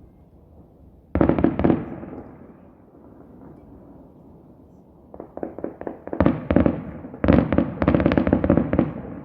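Aerial fireworks bursting: a sudden cluster of bangs about a second in that fades away, then from about five seconds in a rapid run of cracks and heavier booms.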